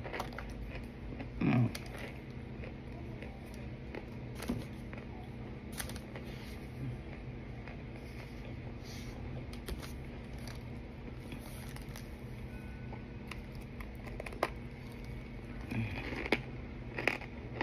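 Someone quietly chewing pressed cornstarch, with a few scattered crunchy clicks over a steady low background hum.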